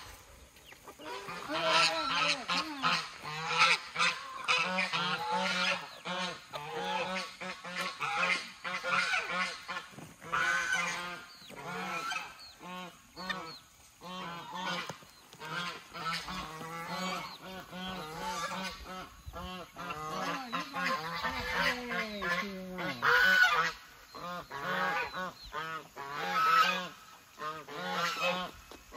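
White domestic geese honking loudly and over and over, many calls overlapping, upset at being left out while the chickens get fed.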